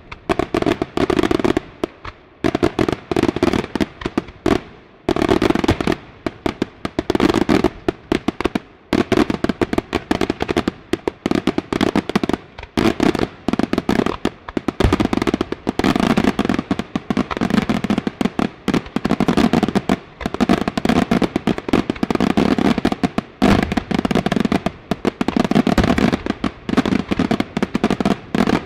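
Daytime fireworks: aerial shells bursting overhead in dense, rapid strings of bangs and cracks, with a few short breaks.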